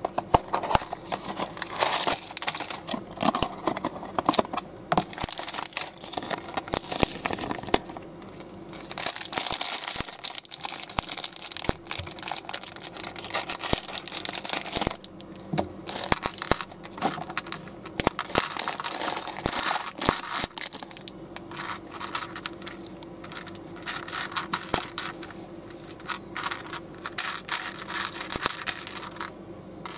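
Clear plastic parts bags crinkling and being torn open, with cardboard box handling, then small plastic building bricks clicking and rattling as they are tipped out and sorted on a plastic baseplate.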